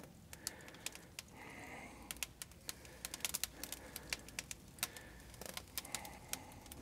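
Faint, irregular sharp clicks and ticks as bamboo-skewered chicken satay is laid on the steel grate of a charcoal kettle-style kamado grill.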